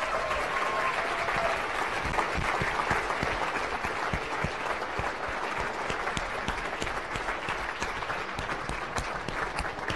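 Audience applauding, a steady round of clapping.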